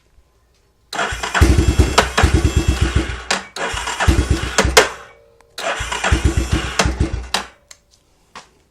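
2004 Yamaha Warrior 350's single-cylinder four-stroke engine being cranked in two attempts, a rapid pulsing that stops each time without the engine staying running; it is cold and reluctant to start.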